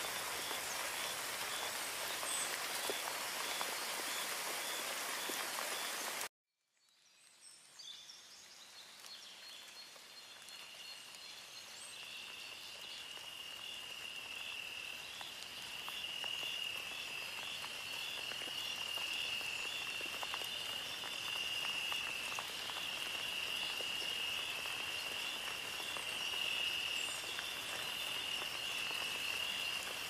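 Nature ambience of steady rain with a high, steadily pulsing animal call over it. It cuts out suddenly about six seconds in and fades back in over the next several seconds, the high call now louder.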